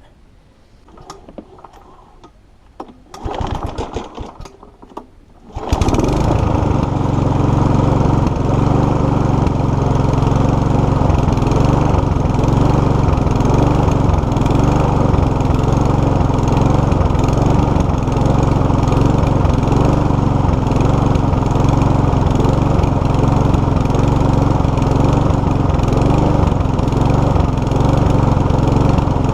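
Mountfield HP454 lawnmower's SV150 petrol engine being pull-started: a short burst of cranking, then it catches about six seconds in and runs on steadily at speed. It is hunting and surging, which the owner puts down to a dirty carburettor.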